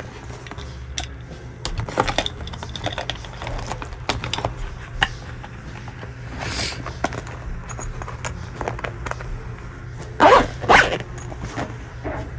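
Rustling, clicks and knocks of bags being packed, over a steady low hum. A dog barks twice in quick succession near the end.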